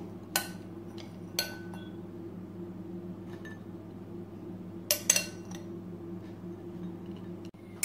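A metal spoon clinking against a drinking glass as raisins are spooned in: a few sharp clinks spread out, one with a brief ring, and a small cluster about five seconds in, over a steady low hum.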